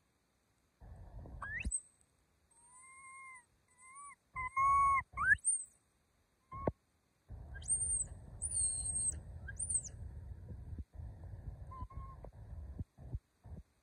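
Short, high-pitched whistled animal calls that rise and fall, several in a row, coming in two bouts a few seconds apart. Beneath them is a low, noisy rumble with a few clicks.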